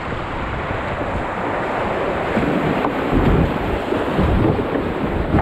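River rapids rushing and splashing around a kayak running shallow whitewater over rocks, with wind buffeting the microphone in irregular low thumps.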